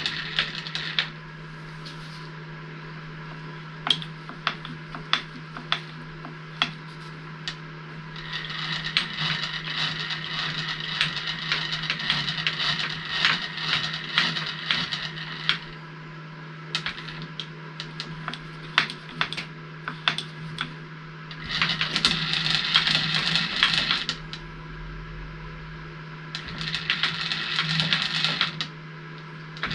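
Metal sliding and scraping in three spells, with scattered light metallic clicks, as a dial indicator setup is moved across a freshly machined cylinder face. A steady low hum runs underneath.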